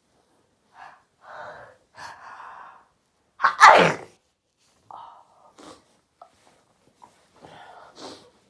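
A person with a cold taking a few quick gasping breaths, then sneezing loudly once about three and a half seconds in, followed by short breaths.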